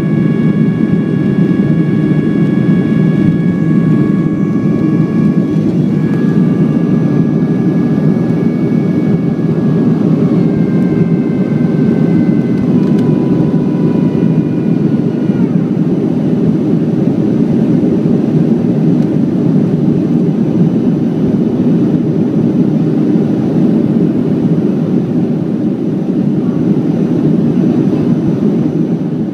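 Cabin noise of a Boeing 737-400 climbing after takeoff: a loud, steady low roar, with a high whine from its CFM56 engines that steps down in pitch several times and is gone by about halfway through.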